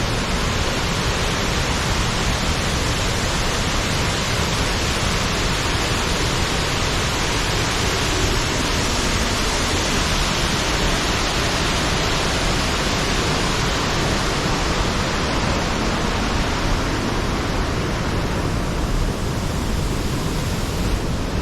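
Waterfall on Tenaya Creek pouring steadily: an even, unbroken rush of falling water.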